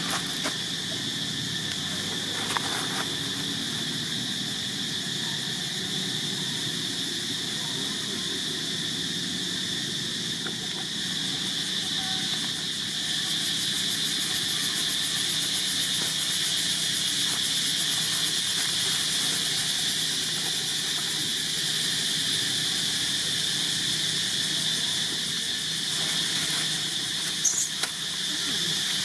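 Insect chorus in dry woodland: a steady high-pitched drone that gets a little louder about halfway through, with a couple of brief sharp high clicks near the end.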